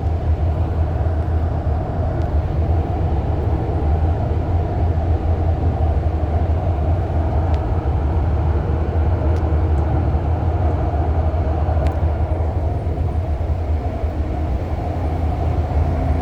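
REM electric light-metro train running, heard from inside the car: a steady low rumble with an even running hiss above it and a few faint ticks.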